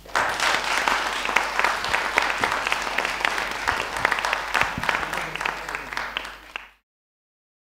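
Audience applauding: dense, steady clapping that cuts off suddenly about seven seconds in.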